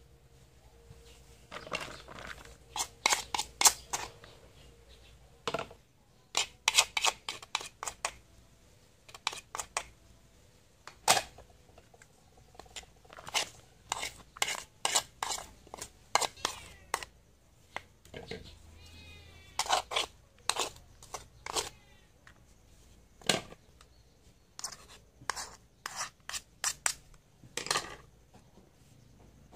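Sliced salad vegetables tipped from small bowls into a plastic basin, with clusters of quick sharp taps and clatter as the bowls and a utensil knock against it. A short warbling call about two-thirds of the way through.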